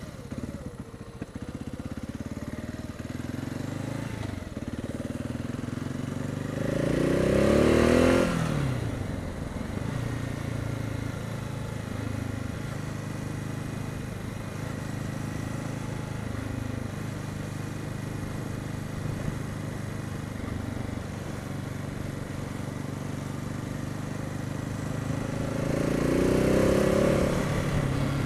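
Husqvarna TR 650 Strada's single-cylinder engine running steadily while the motorcycle is ridden. Twice, about seven seconds in and again near the end, the engine gets louder and its pitch rises as it accelerates.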